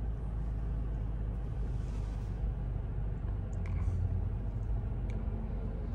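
Steady low rumble of a moving vehicle, with a couple of faint ticks in the second half.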